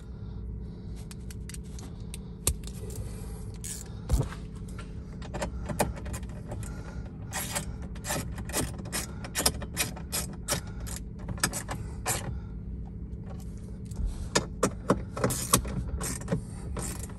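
Hand ratchet clicking in quick runs as two 10 mm bolts are driven in, over a steady low hum.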